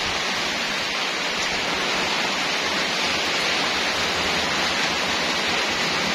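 Heavy rain falling steadily: an even, unbroken hiss of a downpour.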